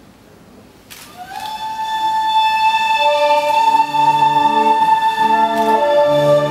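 Slow, sustained music fades in about a second in, after a click: a high held note slides up into pitch, joined about three seconds in by long held lower notes in a smooth, legato chord.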